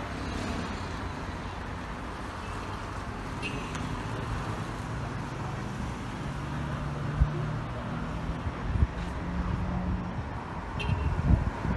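Street traffic: cars driving past on a city road, with a vehicle's engine hum coming up near the middle and a couple of light knocks.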